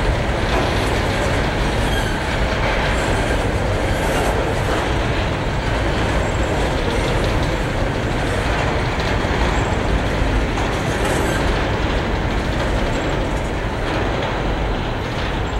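Covered hopper wagons of a freight train rolling past close by: a steady rumble of steel wheels on the rails, with wheel clicks over rail joints. The sound eases slightly near the end as the last wagon goes by.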